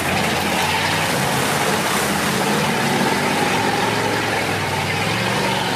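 Off-road 4x4's engine running under throttle, its pitch held fairly steady.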